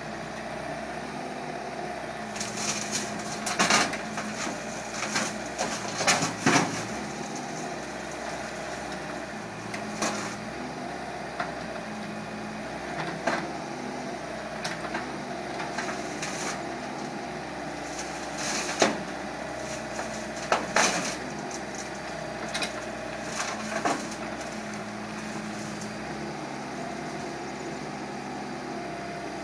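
Mini excavator's diesel engine running steadily under load, with sharp knocks every few seconds as its steel tracks climb onto the tipped-up truck bed.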